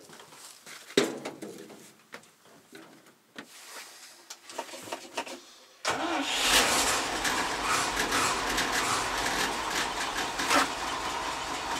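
Knocks and a thump from climbing into the truck cab. About six seconds in, the 1981 GMC C7000 dump truck's gasoline engine starts suddenly and settles into a steady idle. The engine has just been tuned up with new spark plugs, plug wires and air filter, and seems to run better.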